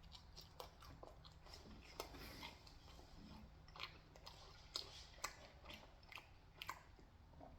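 Faint chewing of pizza, close to the microphone, with scattered soft mouth clicks.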